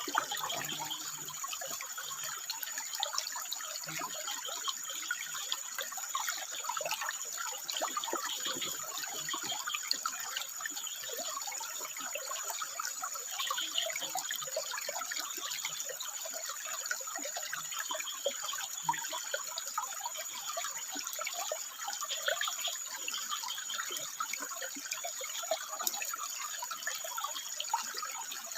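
Water flowing and trickling over rocks, a steady dense splashing and bubbling, with a thin steady high tone running above it.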